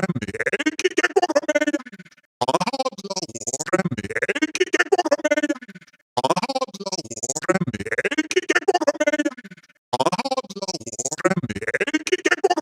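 Synthesized robotic voice stuttering in rapid choppy pulses with gliding pitch. It comes in repeated phrases of about four seconds, broken by short gaps.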